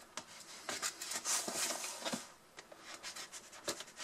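Knife blade scratching and slicing through the seal sticker on a cardboard tablet box, mixed with rubbing as the box is handled. A few light clicks come in the second half.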